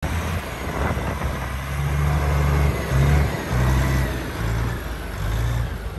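DAF CF tractor unit's diesel engine running, its low note stepping up and down in pitch several times.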